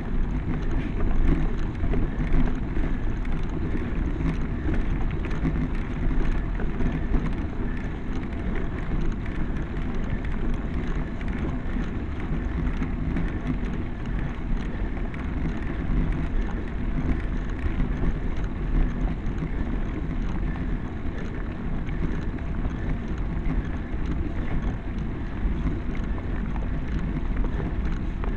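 Steady low wind rumble on the microphone of a camera riding on a road bike, mixed with the hiss of bicycle tyres rolling on a rough road surface.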